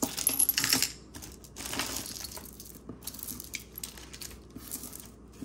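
Glass beads of a long necklace clicking and clattering against each other as it is handled, densest and loudest in the first second, then softer scattered clicks.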